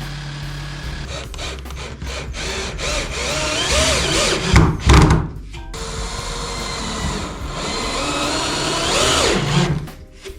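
A power tool running in bursts during woodworking, its motor pitch rising and falling, with a couple of heavy knocks about halfway through.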